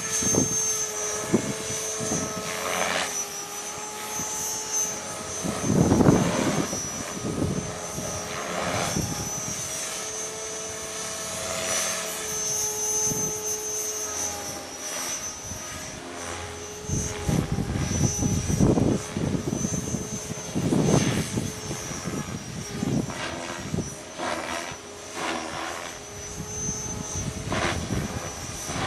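Mikado Logo 400 electric RC helicopter in flight: a steady rotor hum with a high motor whine, its pitch shifting slightly. Strong wind buffets the microphone in loud gusts.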